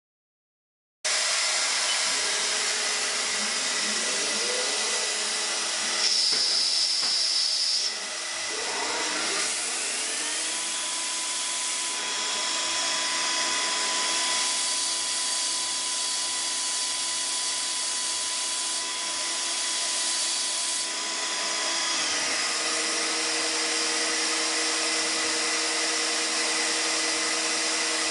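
Haas MiniLathe CNC lathe running under power, with a steady hiss. Its spindle whine rises in pitch twice, holds a steady pitch, then shifts to a new steady pitch later on.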